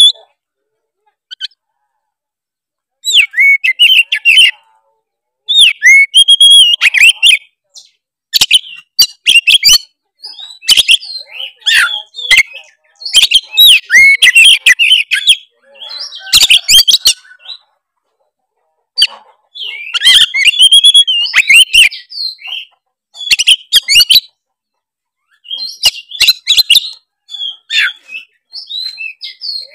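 Oriental magpie-robin (kacer) singing vigorously in full song: rapid phrases of varied whistled notes mixed with harsh, clicky notes, each phrase a second or two long with short pauses between, beginning about three seconds in.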